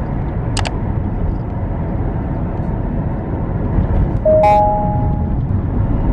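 Steady low rumbling noise, with a brief high chirp about half a second in and a two-note tone past the four-second mark, its higher note held for about a second.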